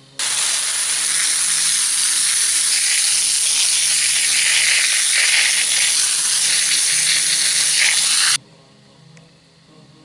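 A jet of water hisses as it sprays onto a soil-caked aluminium anthill cast, washing the dirt off. The hiss starts suddenly just after the start and cuts off abruptly about eight seconds in.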